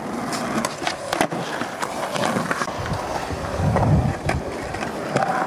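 Skateboard wheels rolling on concrete, with several sharp clacks of the board against the ground, and a louder stretch of low wheel rumble about four seconds in.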